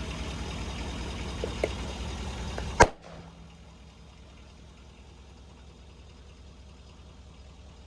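Pickup truck engine running with a low steady rumble and a couple of small cracks, then one loud, sharp crack as an object bursts under the tire, nearly three seconds in. After it the sound drops suddenly to a much quieter, even background.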